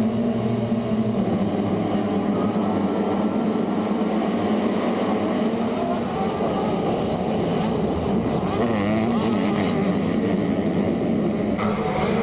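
Motocross bike engines running, their pitch rising and falling as they rev.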